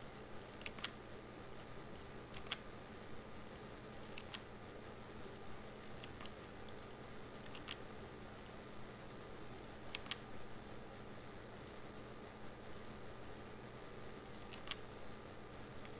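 Scattered, irregular clicks of a computer mouse and keyboard, about one or two a second, over a faint steady hum.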